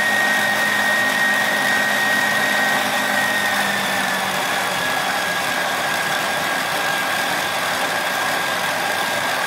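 Kenwood KM280 stand mixer's motor running at high speed, its whisk beating eggs and sugar into a foam. A steady whine that drops slightly in pitch about four seconds in.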